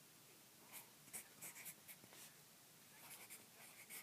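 Pencil writing on notebook paper: faint, short, irregular scratching strokes of handwriting.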